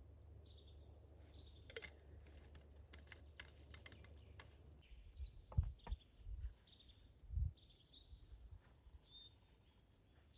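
A small bird chirping in a series of short high notes that drop in pitch, with scattered light clicks and, in the middle, several low thuds that are the loudest sounds.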